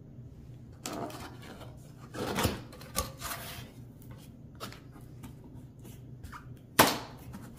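A large cardboard box being opened and handled: scraping and rustling of cardboard flaps with a few knocks, the loudest a sharp thump about seven seconds in.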